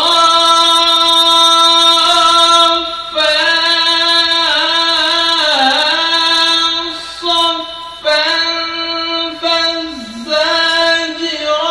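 A man reciting the Quran in melodic tajweed style, his high, strong voice holding long drawn-out notes with ornamented turns, in phrases separated by brief pauses for breath.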